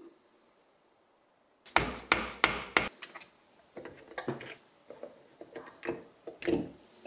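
Hard metal knocks and clicks from an air-conditioning compressor being taken apart: a quick run of about six loud knocks a couple of seconds in, then lighter, scattered taps and clicks of the aluminium housing and piston block parts.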